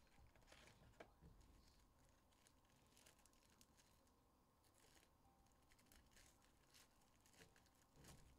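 Near silence with faint handling sounds: a trading-card box being opened and a foil card pack being torn open, a few light clicks and rustles, with a short rustle near the end.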